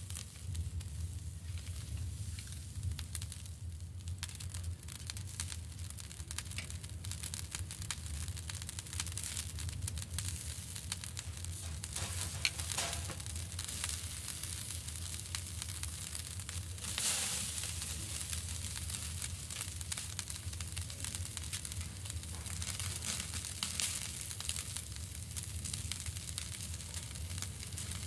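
Coiled sausage sizzling on a charcoal grill grate, with fine crackling throughout. The sizzle flares up louder briefly a couple of times around the middle.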